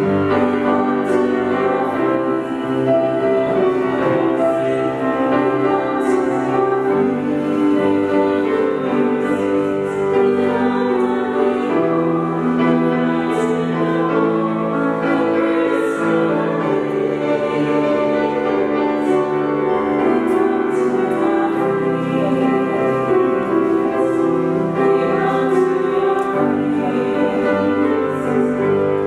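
A church hymn sung with piano accompaniment, held notes and chords running on without a break.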